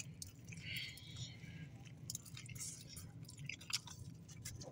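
A person biting into and chewing a chicken cheesesteak sub, faint mouth sounds with scattered small clicks.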